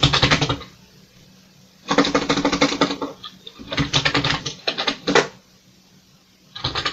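Keys being typed on a Commodore VIC-20's keyboard: quick runs of clacking keystrokes at the start, about two seconds in, around four to five seconds, and again near the end, with short pauses between.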